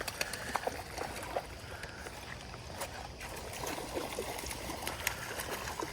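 Creek water running over shallows, with scattered small clicks and splashes while a hooked trout is being reeled in.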